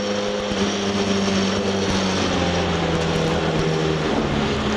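Ford Escort RS2000 Mk2's four-cylinder engine heard from inside the cockpit at speed. Its note drops to a lower pitch about two seconds in as the car slows from high speed, and it breaks briefly near the end.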